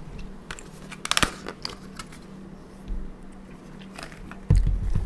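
Close-miked chewing and mouth sounds of a person eating: a quick run of wet clicks about a second in, smaller clicks after, and a heavy low thump near the end.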